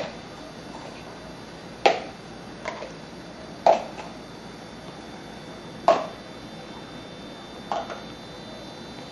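Hollow plastic stacking cups clacking as they are set one on top of another into a tower: sharp single clacks, one every second or two, about six in all.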